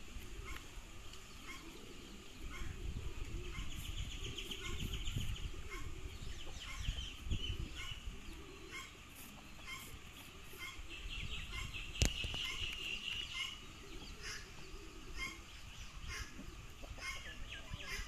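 Poultry clucking and chirping softly and repeatedly while foraging, with two longer rapid trilling calls and a low rumble underneath; one sharp click about twelve seconds in.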